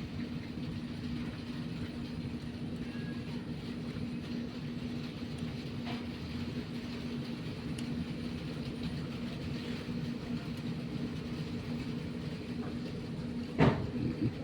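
Steady low mechanical hum with a constant tone, and one sharp knock a little before the end.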